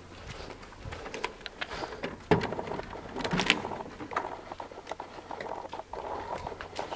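Footsteps inside a large empty building, with irregular scuffs, clicks and knocks. The sharpest knock comes a little over two seconds in.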